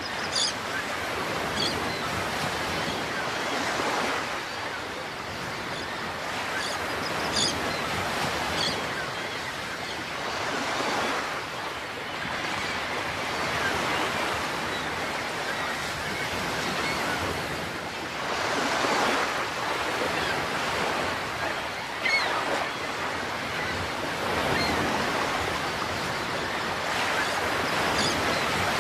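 Pacific Ocean waves washing and surging, rising and falling every few seconds, with three brief high-pitched chirps over them.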